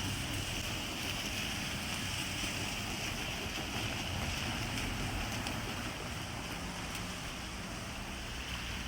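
Diesel railcar running with a steady low engine rumble and hiss.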